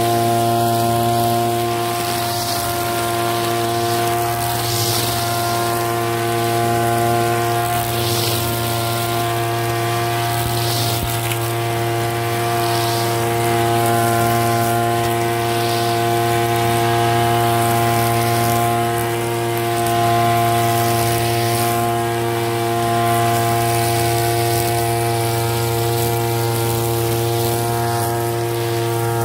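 Backpack brush cutter's small petrol engine running steadily at cutting speed, with a short swishing hiss every second or two as the cutting head sweeps through the grass.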